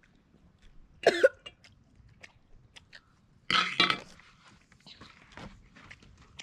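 A man coughing: one short cough about a second in, then a harder double cough at about three and a half seconds, set off by A1 steak sauce going down his throat.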